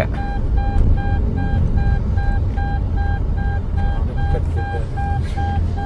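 Car's passenger seatbelt reminder chime beeping quickly, about three short beeps a second, over the low rumble of the moving car in the cabin. It is warning that the passenger's seatbelt is unbuckled.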